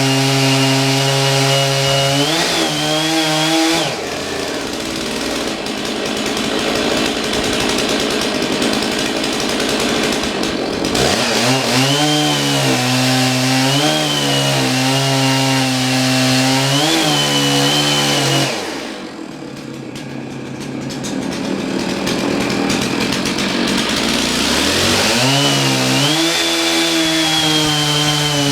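Chainsaw running at high revs and cutting into a log with a worn-down chain, its pitch sagging again and again as it bogs in the cut. About two-thirds of the way through it drops back to idle, then revs up again a few seconds later.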